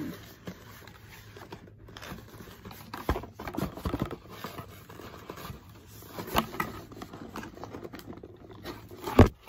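Handling noise from a phone box as it is opened and the phone taken out: scattered knocks, scrapes and rustles, with one sharp thump, the loudest sound, near the end.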